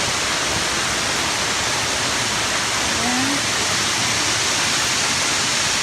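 Waterfall pouring onto rocks, a steady full rush of falling water.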